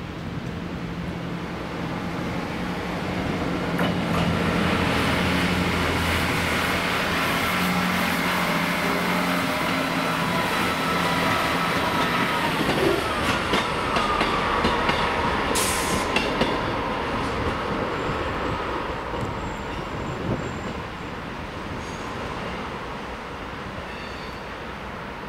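Diesel train passing through: its engine drones, its wheels click over rail joints, and its pitch drops as it goes by about halfway through. There is a short hiss a little after that.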